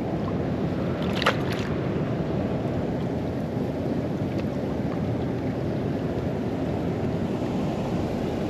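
Steady low rushing noise, with a short sharp clatter a little over a second in.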